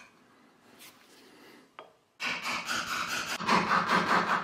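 A metal pick scraping faintly inside an aluminium housing. About two seconds in, a much louder, rough rasping and rubbing noise takes over.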